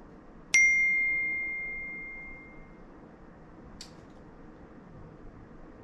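A phone's text-message notification chime: one clear bell-like ding that rings out and fades over about two seconds. A brief faint high tick follows near the end.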